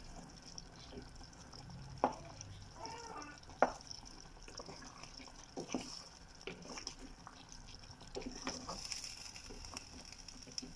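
A wooden spatula stirring a thick chicken stew in a pan, knocking against the pan now and then in sharp, irregular clicks, over a faint simmering hiss from the bubbling sauce.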